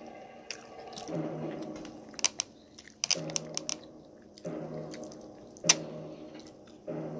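Close-up chewing and biting of a person eating oxtail, with sharp clicks from a plastic fork. A low, steady tone comes and goes in spells of about a second.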